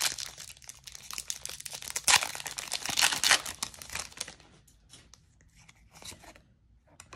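Foil wrapper of a Pokémon trading card booster pack being torn open and crinkled for about four seconds, with a few louder rips. Then quieter light taps and rustles as the cards are slid out and handled.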